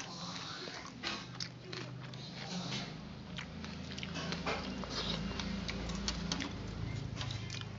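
Eating rice and curry by hand from a metal plate: fingers mixing and squishing the food against the plate, with irregular small clicks and wet crackles, and some chewing.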